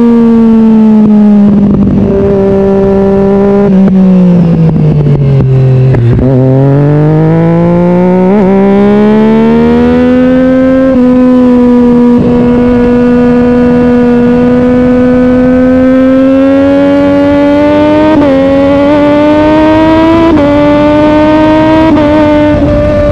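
Sport motorcycle engine running while under way. The engine note dips as the bike slows about four to six seconds in, then climbs back and holds steady, with a few brief bumps in pitch near the end.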